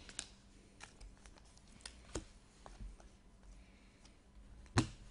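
Trading cards handled and flipped through by hand: scattered light clicks and snaps of card edges against one another, with one sharper snap near the end.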